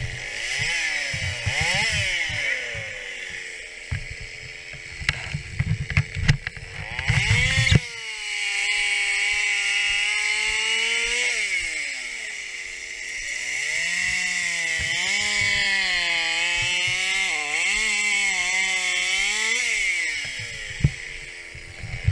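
Stihl 021 two-stroke chainsaw revving: for the first several seconds the revs rise and fall in quick blips, then from about 8 seconds in the engine is held at high revs, dipping briefly a few times, before dropping back near the end.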